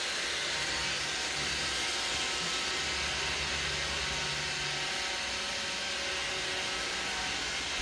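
Roomba robot vacuum running: a steady, even hiss from its vacuum motor and brushes, with a faint low hum that fades out about five seconds in.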